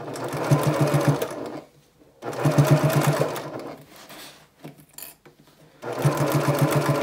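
Janome HD9 Professional straight-stitch sewing machine running in three short stop-start runs of stitching, with the needle's rapid, even rhythm and brief pauses between runs, the second pause longer.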